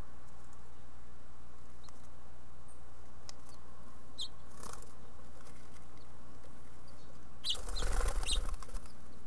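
House finch fledgling flapping its wings inside a wooden nest box: a brief flurry of wingbeats about eight seconds in, after a few soft scratches and clicks.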